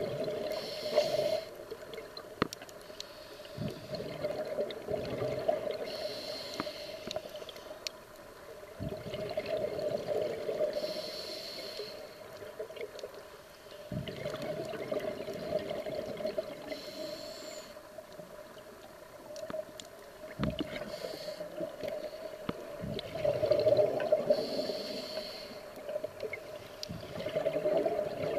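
Scuba diver's regulator breathing, recorded underwater: a bubbling, hissy exhalation about every five seconds over a steady low hum, with a few short clicks.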